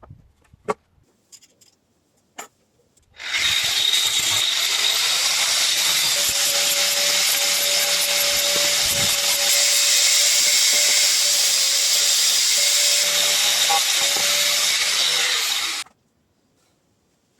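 A power tool running steadily on wood for about twelve seconds, starting and stopping abruptly, after a few light knocks.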